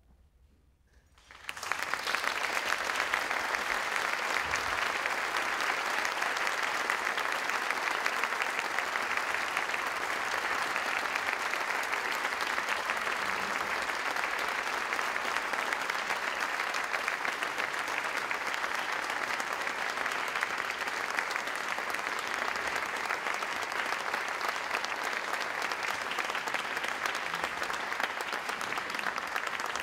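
Audience applauding steadily, breaking in suddenly about a second and a half in after a brief hush.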